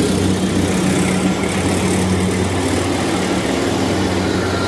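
Kubota DC-60 rice combine harvester's diesel engine running steadily at close range, a constant low hum with a working clatter over it.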